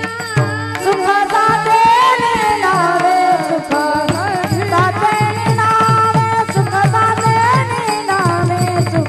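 Devotional kirtan music: a woman's voice singing a long, gliding melodic line without clear words, over regular tabla strokes and a steady drone.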